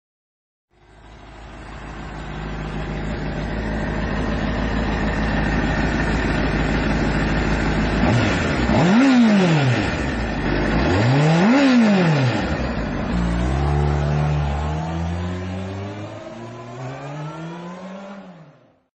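Honda superbike engine running steadily and growing louder, then revved twice, the pitch shooting up and dropping back each time. After that the pitch climbs again in steps while the sound fades out.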